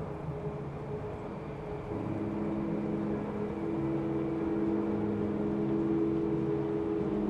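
Low, layered droning tones of a spooky ambient soundtrack. The drone holds steady and shifts to new tones about two and again three and a half seconds in.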